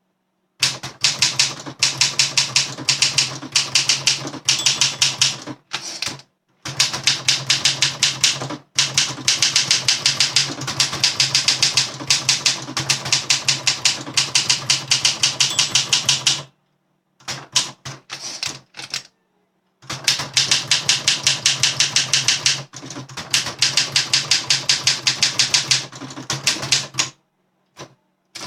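Overhauled 1961 Olympia SM7 manual portable typewriter being typed on quickly: long runs of rapid keystrokes, with short pauses and a longer break with only a few scattered strokes about halfway through.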